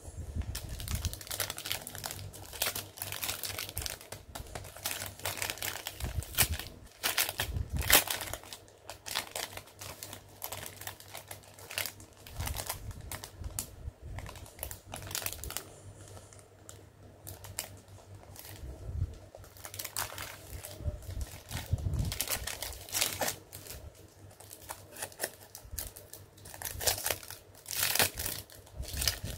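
Clear plastic packaging crinkling and crackling in irregular bursts as hands open a small bagged acrylic-stand kit and handle the card and plastic sheet inside. The loudest crackle comes about eight seconds in.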